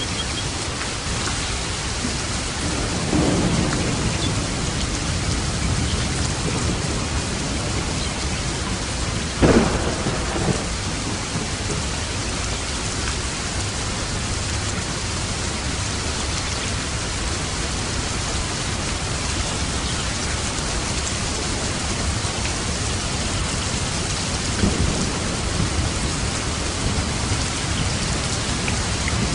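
Steady rain drumming on a roof, with thunder: a low rumble about three seconds in, a sharp loud crack near the ten-second mark, and further rumbles near the end.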